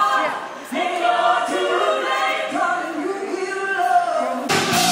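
A group of voices singing together, carrying a melody with no drums behind them. Near the end, a band with drums and bass comes in abruptly.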